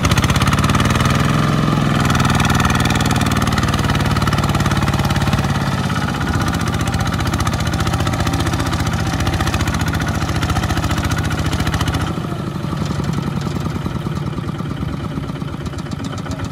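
Single-cylinder diesel engine of a two-wheel walking tractor running hard under load as it drags a loaded rice trailer through deep mud, with rapid, even firing pulses. The engine speeds up near the start and drops a little in level about three-quarters of the way through.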